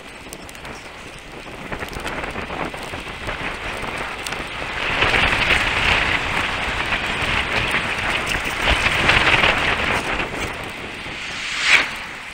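Steady rush of wind across the camera microphone with tyre noise on tarmac as a mountain bike rolls along, growing louder for several seconds in the middle. A short, sharp burst of noise near the end.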